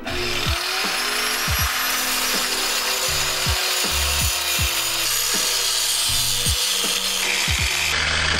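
Handheld grinder with an abrasive cut-off wheel spinning up and then cutting steadily through a steel nut that is stuck and cannot be unscrewed. Its high whine rises as it comes up to speed at the start.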